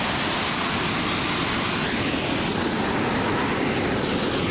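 Victoria Falls' water crashing into the gorge: a steady, even rushing roar.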